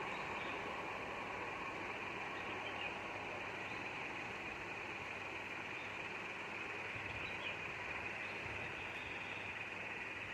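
Faint, steady rumble and hiss of an express train running through the station and moving away, with no horn.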